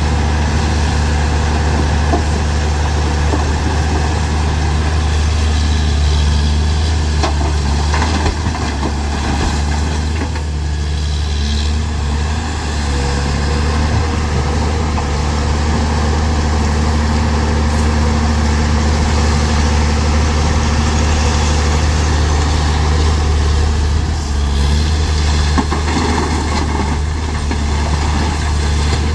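Large excavator's heavy diesel engine running steadily at a constant speed, with a few short knocks.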